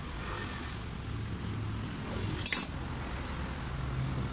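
A single sharp metallic clink about two and a half seconds in, as metal parts or a tool knock together while a diesel injection pump is reassembled on a metal workbench. A low steady hum runs underneath.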